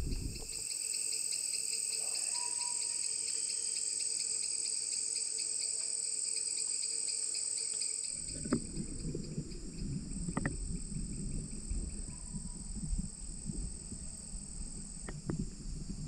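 Chorus of rainforest insects: a steady high-pitched trilling with a fast pulsing buzz beneath it. About halfway through a low rumble comes in, with a few sharp clicks.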